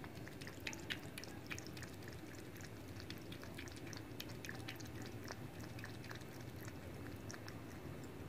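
Tabby cat lapping water from a plastic bowl: quick, wet tongue ticks, several a second, over steady low background noise.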